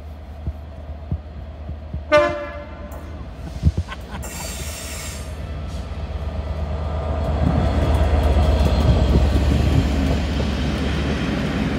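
Class 67 diesel locomotive giving one short horn blast about two seconds in, then its engine and wheels growing steadily louder as it runs past close by.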